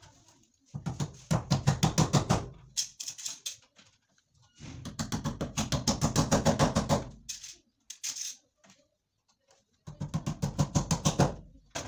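Small hammer driving nails into a wall with rapid, rhythmic blows, several a second, in three bursts: about a second in, from about four and a half seconds in, and near the end.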